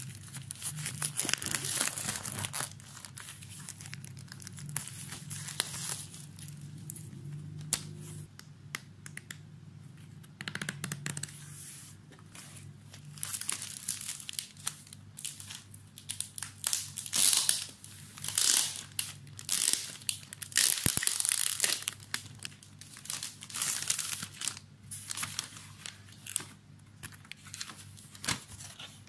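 Clear plastic wrapping on a watercolour paper pad crinkling and tearing as it is pulled off, with paper rustling and sliding as the pad and its sheets are handled. The rustles come in irregular bursts, busiest a little past the middle.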